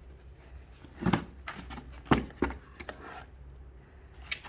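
Knocks and clicks of vacuum-cleaner parts and packaging being handled while unboxing: a few sharp knocks about a second in, around two seconds in and again near the end.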